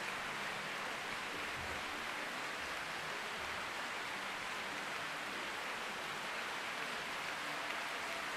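Sustained applause from a large concert-hall audience, a dense, even wash of clapping that holds steady throughout.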